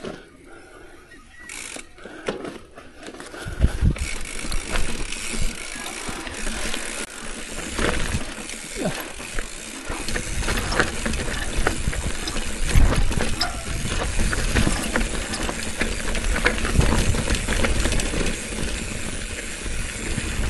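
Bicycle ridden over a rough trail: rattling and knocking over a steady rushing noise. It starts quietly with a few scattered ticks and grows much louder about four seconds in.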